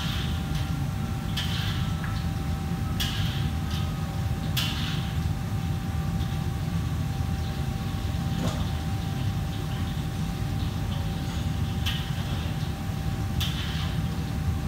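Steady low hum of kitchen fans running, with a faint steady whine on top. Short sharp clicks or clinks come at irregular intervals of one to four seconds.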